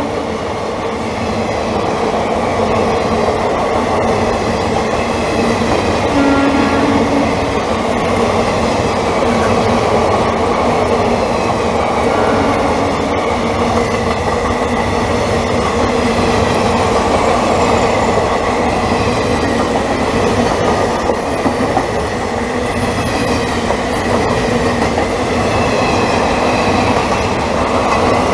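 Coaches of an express train passing close at speed: a steady, loud rush of wheel and track noise. A short horn blast sounds about six seconds in.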